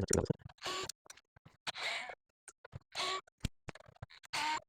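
Several short scraping, rattling bursts, about one a second, from screws and small metal parts of a receiver being handled during disassembly.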